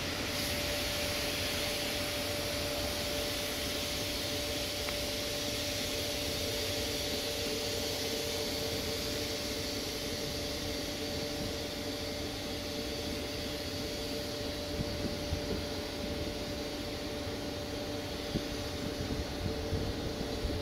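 Locomotive approaching slowly, its machinery giving a steady whirring drone with a constant hum, and a few light knocks near the end.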